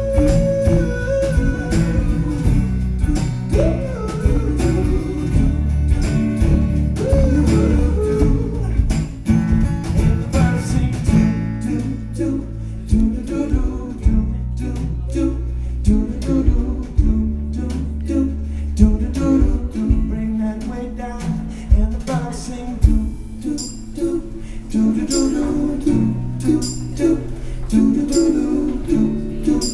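Live acoustic music: strummed acoustic guitar with a man's voice singing over it for the first several seconds, then the guitar strumming on in a steady rhythm.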